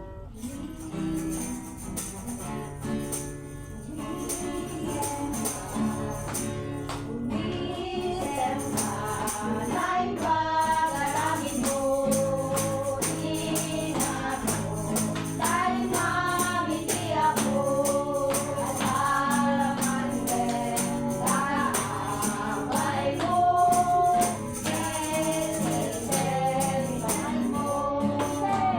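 A group singing a worship song with strummed guitar and shaken tambourine, getting louder over the first several seconds.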